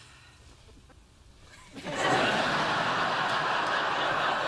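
Studio audience laughing. The laughter rises sharply about two seconds in and then holds steady.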